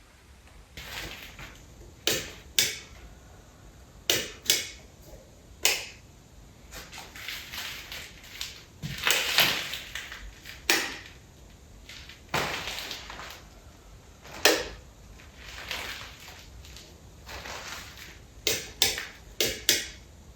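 Irregular sharp clicks and knocks, about fifteen of them, with bursts of rustling and scraping in between, as of objects being handled.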